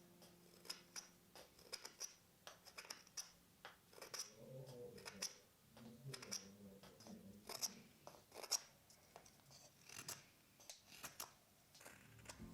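Knife whittling wood: quiet, irregular short slicing and scraping cuts, several a second at times, with pauses between strokes.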